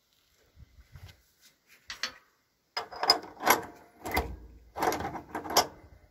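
Metal clanking and rattling, in about five quick bursts in the second half, as a hand works a part on the tractor's pedal bracket.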